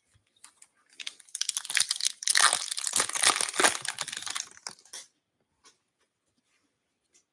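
Foil wrapper of an Upper Deck Series 2 hockey card pack being torn open and crinkled, starting about a second in and lasting about four seconds.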